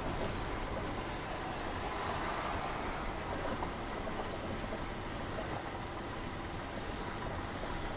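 Steady road and wind noise heard from inside a vehicle cruising at freeway speed, an even rush with no engine note standing out.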